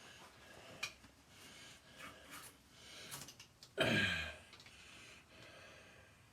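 Quiet hand work with a few faint clicks, and a short grunt from a man about four seconds in, falling in pitch.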